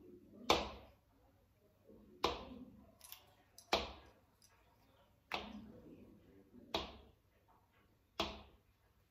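Adult voices saying single letter sounds (phonemes) one at a time from a phonics chart. About one short, sharply starting sound every second and a half.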